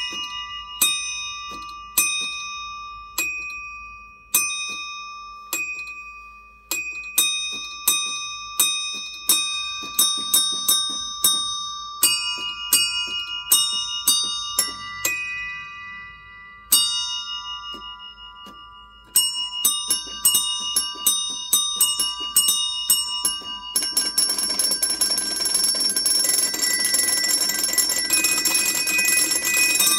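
A set of small metal bells struck one after another in a rhythmic pattern, each strike ringing out and dying away. The strikes come quicker from about halfway through, and for the last several seconds many bells ring together in a continuous trill like electric alarm bells.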